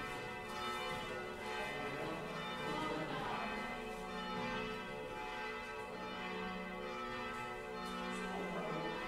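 Several church bells ringing together in a continuous peal, their strikes overlapping so the tones keep sounding without a break.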